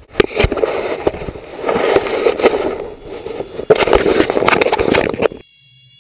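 Rumbling, rustling noise with irregular sharp knocks from a GoPro HD Hero head cam jostled on a runner's head as he sets off. It cuts off suddenly about five seconds in, leaving a quiet stretch with a few faint steady tones.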